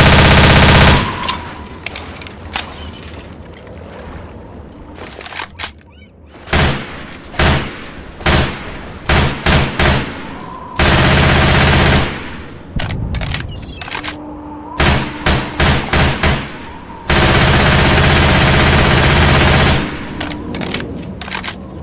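IMI Uzi submachine gun firing on full auto in bursts. A long burst ends about a second in, followed by short bursts and single shots. Two more long bursts of a couple of seconds each come around the middle and about three-quarters through, with more short bursts near the end.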